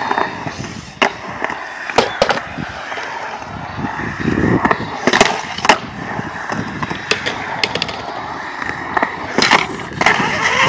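Skateboard wheels rolling and carving on concrete, broken by several sharp clacks of the board and trucks striking the concrete.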